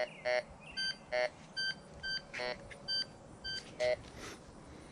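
Ricomax three-tone metal detector beeping as its coil sweeps over a regular quarter: short beeps about twice a second, some in a lower tone and some in a higher one. The high tone is the coin-range signal the detector is meant to give for a quarter.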